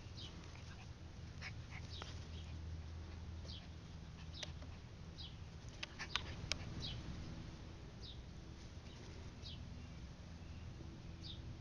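Small dogs play-wrestling on grass, with faint scuffling. Short high chirps repeat about once a second, and a few sharp clicks come about halfway through.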